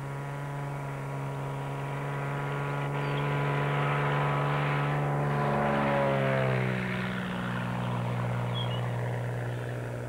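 Single-engine high-wing light plane's propeller engine at takeoff power, growing louder as it climbs and passes overhead about six seconds in. Its pitch drops as it goes by, and it fades as it flies away.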